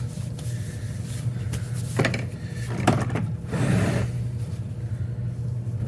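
Items being rummaged through and handled in a chainsaw carrying case: two sharp knocks about two and three seconds in, followed by rustling, over a steady low hum.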